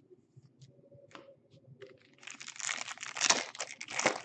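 A trading-card pack's foil wrapper being torn open and crinkled: a dense crackling rustle lasting about two seconds, starting about halfway through, after a few faint ticks.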